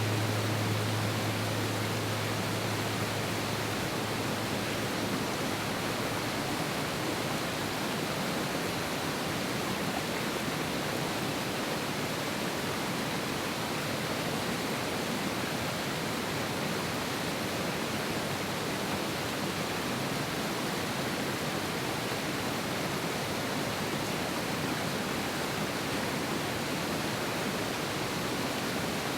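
Mountain river rushing strongly over rocks, a steady unbroken roar of water. A low drone fades out in the first second.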